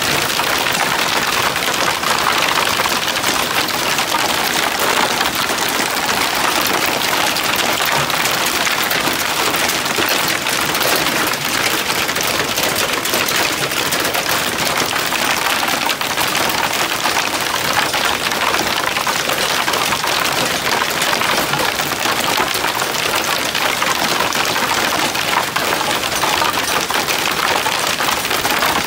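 Hailstorm: a dense, steady clatter of hailstones pelting down on a wooden deck and the ground around it.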